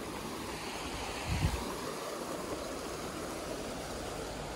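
Steady rushing background noise with a single low thump about a second and a half in.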